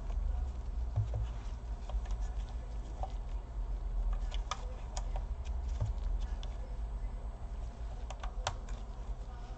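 Scattered light clicks and taps as the plastic parts of a Dell Inspiron 1525 laptop are handled and fitted during reassembly, over a low steady hum.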